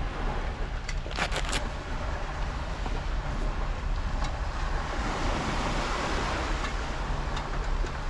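Wind buffeting the microphone in a steady low rumble, with a few sharp knocks about a second in and a broad hiss of surf building later.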